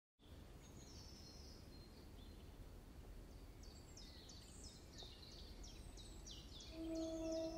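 Faint outdoor ambience of birds chirping over a low rumble, the chirps short falling notes that grow busier about halfway through. Near the end a steady ringing musical tone comes in.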